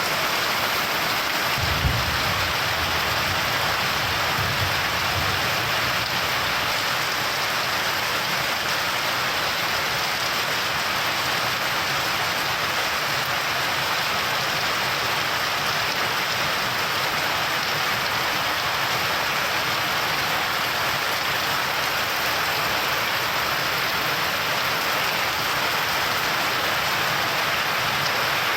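Steady rain falling, with a short, low rumble of thunder about two seconds in and a fainter one shortly after.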